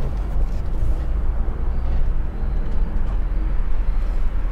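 Cab noise of a Ram ProMaster-based Class C motorhome under way: a steady low engine and road rumble heard from inside the cab.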